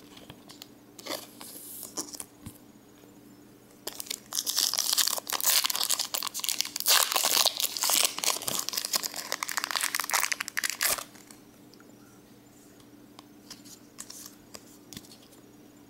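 Pokémon booster pack's plastic foil wrapper crinkling and tearing as it is ripped open, a dense crackly spell from about four seconds in until about eleven seconds. Light handling of trading cards before and after.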